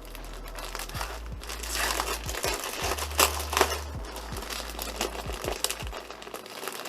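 Packaging crinkling and rustling in irregular crackles as a parcel of items is unpacked by hand, with a few louder crackles about three seconds in.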